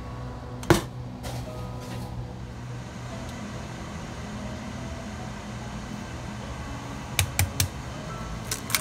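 Steady low appliance hum with a single sharp click about a second in. Near the end, a few quick taps of an egg being knocked against the rim of a ceramic bowl to crack it.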